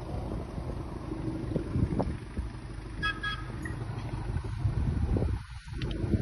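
Wind buffeting the microphone over a steady low rumble, with a faint, brief double high-pitched toot about halfway through.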